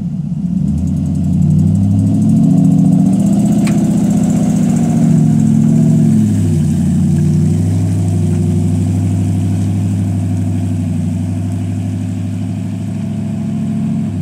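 Boat engine running steadily, its pitch shifting a few times as the throttle changes, then holding.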